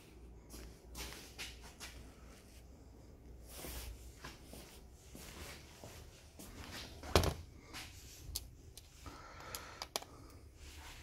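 Quiet handling noise at a workbench: scattered soft clicks and taps, with one sharper knock about seven seconds in, over a faint steady low hum.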